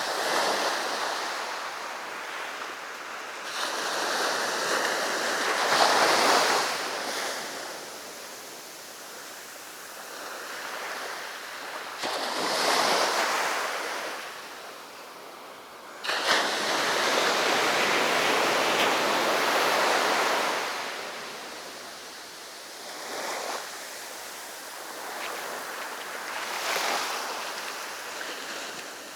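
Ocean surf breaking on the beach: a hissing wash of waves that swells and fades every few seconds. The longest surge starts abruptly about sixteen seconds in and lasts around four seconds.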